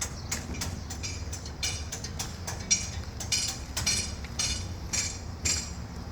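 Metal tools clinking and tapping on metal parts during repair of an asphalt road roller, several irregular ringing strikes a second, the loudest near the middle. A steady low hum runs underneath.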